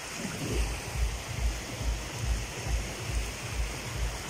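Shallow surf washing over wet sand at the water's edge: a steady hiss of water, with a regular low thump about two to three times a second underneath.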